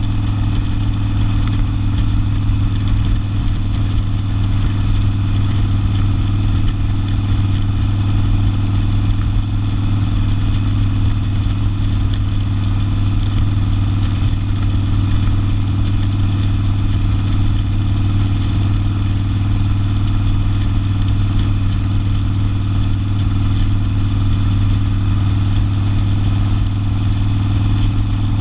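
Harley-Davidson Sportster V-twin with an open exhaust, running loud at a steady, unchanging engine speed.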